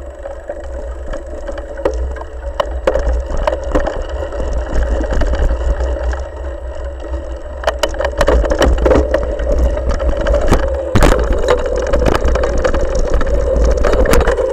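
Mountain bike ridden fast over a bumpy leaf-covered dirt trail, heard from a handlebar-mounted camera: a low rumble with a steady hum, tyres crunching through dirt and leaves, and the frame rattling and clattering over bumps. It grows louder about eight seconds in and again near eleven seconds.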